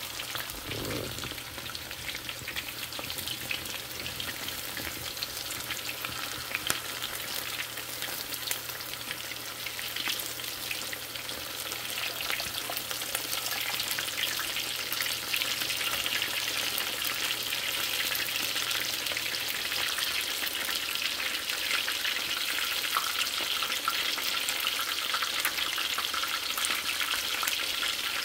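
Chicken wings frying in hot oil: a steady, dense crackling sizzle that grows louder about halfway through.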